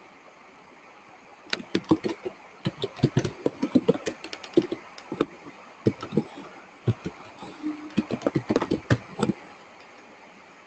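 Computer keyboard typing: a fast, irregular run of key clicks lasting several seconds, stopping shortly before the end.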